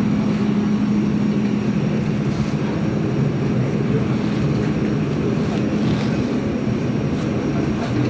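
JCB backhoe loader's diesel engine running steadily at idle, a continuous even hum.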